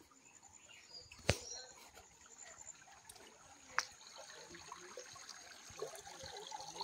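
Faint trickle of a shallow stream running over stones, with two sharp clicks, one about a second in and one near four seconds, and a thin steady high tone in the background.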